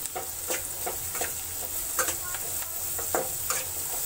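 Metal spatula scraping and knocking against a metal kadhai in irregular strokes, two or three a second, while diced vegetables sauté in hot oil with a steady sizzle.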